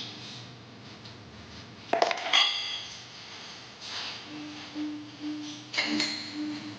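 Dishes and utensils clattering: a sharp clatter about two seconds in that rings briefly, and another clink near the end.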